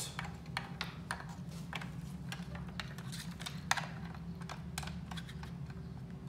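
Irregular small plastic clicks and taps of an Ethernet cable's RJ45 plug being handled and pushed into a port on a small SonicWall firewall, with one sharper click a little past halfway. A steady low hum runs underneath.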